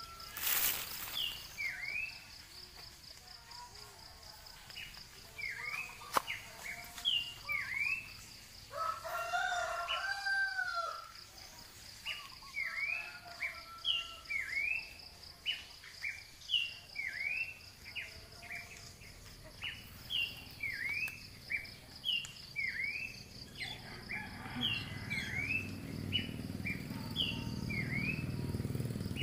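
Short, high chirping calls repeating about once a second over a steady, pulsing high buzz. A longer, wavering call comes about ten seconds in, and a low rumble builds over the last few seconds.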